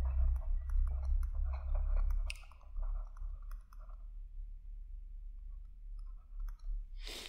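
Stylus tapping and scratching on a tablet screen during handwriting: a run of small clicks for the first few seconds, then quieter. A steady low electrical hum runs underneath, and there is a short sharp noise near the end.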